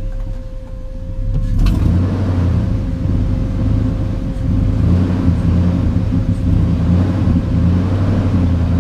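Chevy Silverado pickup's engine running with a steady low rumble and a thin steady tone above it. A click comes about a second and a half in, and after it the engine sound grows louder.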